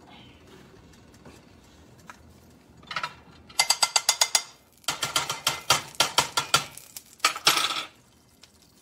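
Rapid, sharp, ratchet-like clicking in three quick runs, starting about three seconds in and stopping about a second before the end.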